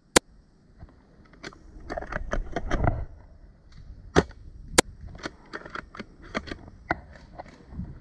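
Airsoft guns firing: a sharp single crack just after the start, then scattered, irregular pops and clicks, the loudest two about four and five seconds in.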